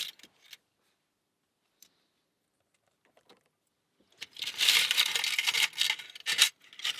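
A few faint clicks, then from about four seconds in a busy rattling and rustling of small metal lockpicking tension tools being rummaged through and handled.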